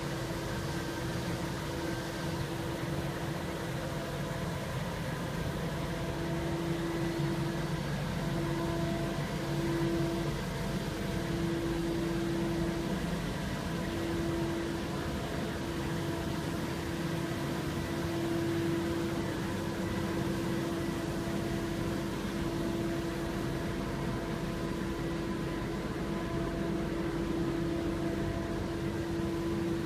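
Street sweeper running steadily: a low engine drone with a steady whine over it, which breaks off briefly several times in the first half.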